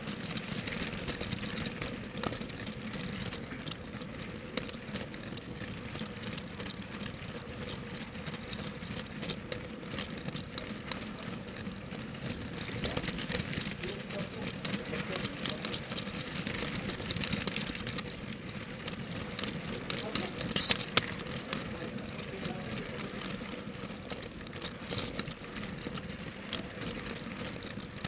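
Toy LEGO train running on plastic track: a steady crackling rattle of wheels over the track, with many small clicks, a faint steady hum, and a few louder clicks about two thirds of the way in.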